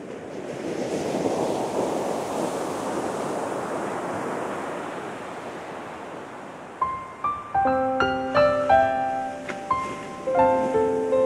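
Ocean surf washing in, swelling and then slowly fading. About seven seconds in, piano music begins with single notes over it.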